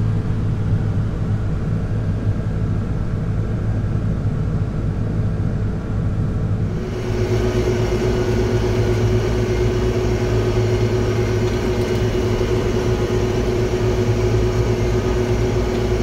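Big farm tractor's engine running steadily, heard from inside its cab. About seven seconds in the sound shifts as the tractor travels on the road: a steady whine joins the engine hum.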